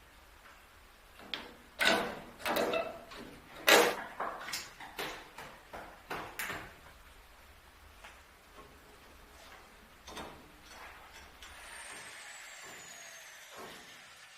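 A run of knocks and clatters, the loudest about two and four seconds in, then quieter, with a faint falling whine near the end.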